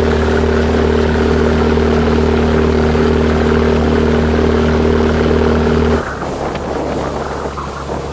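Outrigger fishing boat's engine running steadily at speed, with water rushing in the wake. About six seconds in it changes abruptly to wind buffeting the microphone and spray hissing.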